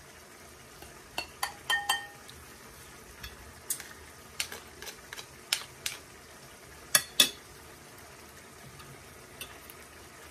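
Metal tongs and a spoon clinking and scraping against a ceramic plate and bowls as cooked spaghetti squash is scraped out: about a dozen sharp clinks, a few ringing briefly, the loudest pair about seven seconds in.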